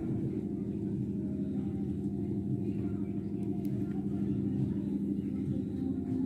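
A steady low mechanical hum of a running motor, with a few low held tones and no breaks.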